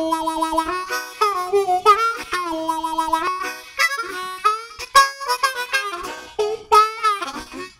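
Intro music led by a harmonica: short phrases of several notes at once, with bent, wavering notes and quick changes.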